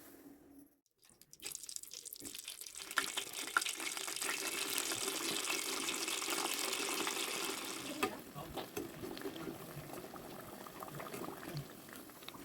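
Potato snacks deep-frying in hot oil: a dense sizzle with fine crackling that starts about a second and a half in and eases to a lighter, crackly sizzle after about eight seconds.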